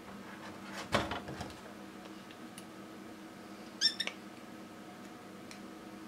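Plastic parts of a laser toner cartridge being handled: a quick cluster of clacks and knocks about a second in, then a short, high squeak near four seconds in as plastic pieces rub together.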